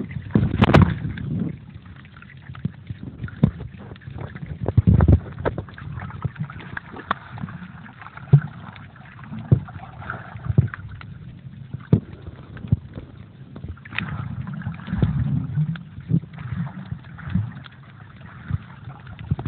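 Muffled water sloshing and gurgling heard through a waterproof phone pouch while snorkeling, with many scattered clicks and low thumps as the pouch is moved through the water.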